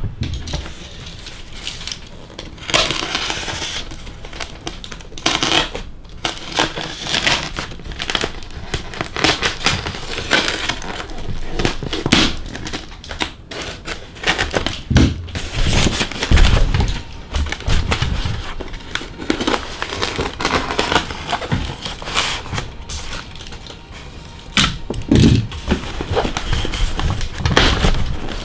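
Packaging being unwrapped by hand: irregular crinkling and rustling of wrapping material, with a few knocks and thumps as the box and its contents are handled.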